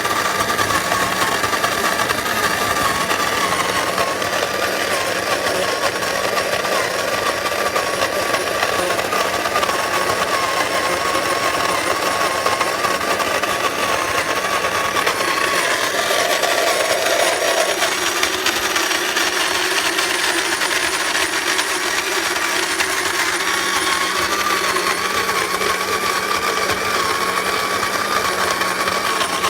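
Secura SCG-903B automatic electric burr coffee grinder running steadily as it grinds a 12-cup batch of whole coffee beans on a fine setting. The motor whine sits over a grinding noise, and the tone shifts slightly about halfway through.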